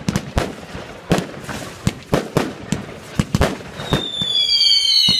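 Fireworks display: a string of sharp bangs and pops, then about four seconds in several high whistles that slide down in pitch.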